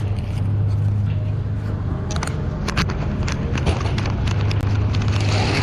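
A steady low engine hum, like an idling vehicle, under scattered light clicks and knocks from handling scrap at the scale.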